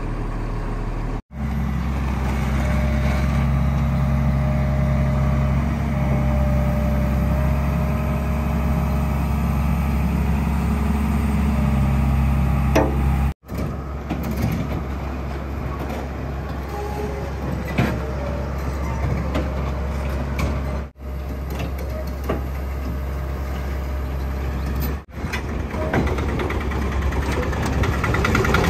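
JCB JS205 crawler excavator's diesel engine running steadily, broken by several abrupt cuts. Near the end the sound gets rougher and noisier.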